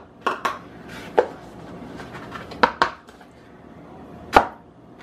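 Kitchen containers being handled and set down on a countertop: a measuring cup and a cardboard cornmeal canister. About six short knocks and clacks, the sharpest one near the end.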